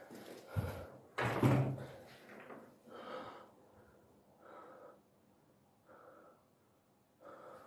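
A light thump, then a loud slam just over a second in, followed by a few faint, short, separate sounds.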